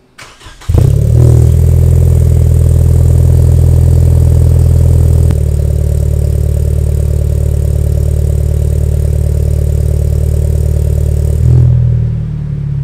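Lexus IS200t's 2.0-litre turbocharged four-cylinder starting up through an Ark Grip catback exhaust and a catless PPE downpipe. It fires about half a second in, runs loud for a few seconds, then settles to a slightly quieter steady idle, with a brief swell near the end.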